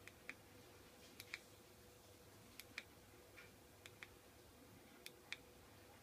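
Buttons on a small 433 MHz RF keyfob remote clicking as they are pressed and released, about five quick click pairs, stepping an LED lamp's dimming level up and down. A faint steady tone runs underneath.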